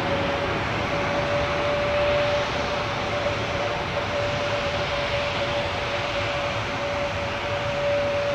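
Jet engines of a Boeing 737-800 (CFM56-7B turbofans) running at low taxi power: a steady whine held on one pitch over an even rush of engine noise.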